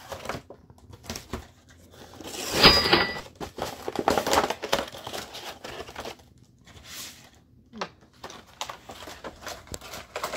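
Plastic action-figure packaging being handled: irregular crinkling and rustling of the clear plastic box with scattered clicks, loudest from about two and a half seconds in.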